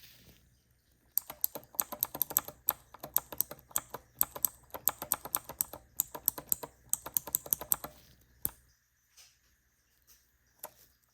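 Clicky mechanical key switches on a small keycap keyboard keyring being pressed rapidly, a quick run of sharp clicks for about seven seconds, then a single click and a few faint ones near the end.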